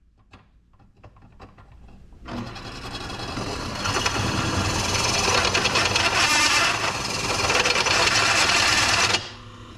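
Power drill boring a hole through a stainless steel intake pipe under steady pressure. It starts about two seconds in after a few light clicks, runs steadily, and stops abruptly shortly before the end.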